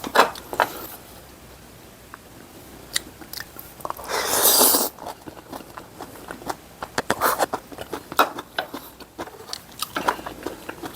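A person eating close to the microphone: mouth clicks and smacks of chewing, with a loud slurp of just under a second about four seconds in.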